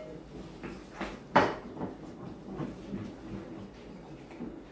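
A wooden spatula scrapes chopped chillies off a plate into a pan and stirs them through thick doenjang paste, with small scraping and clicking sounds. There is one sharp knock about a second and a half in.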